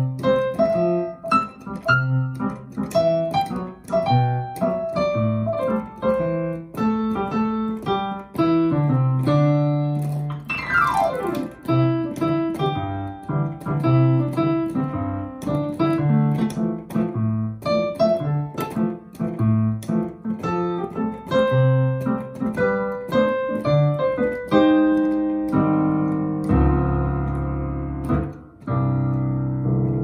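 Roland RD-300SX digital stage piano, on its piano voice, playing a bouncy reggae-style piece with short repeated chords over a bass line. About ten seconds in, a fast run sweeps down the keys, and near the end the playing settles into long held low chords.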